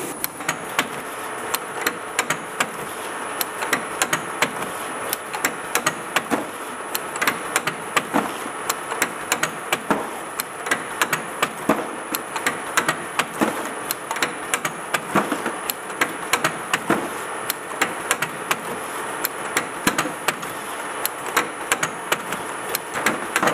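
Capcoder 570 capping machine running on small bottles: a steady mechanical whir with many sharp clicks and clacks, several a second and irregular, over a steady high whine.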